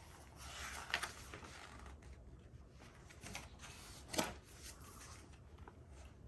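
Paper rustling as the pages of a picture book are handled and turned, with two sharp taps, about a second in and again past the middle.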